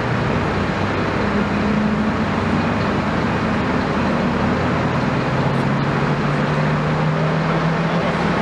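A large engine running steadily, its pitch rising slowly in the second half, over a constant noisy rumble.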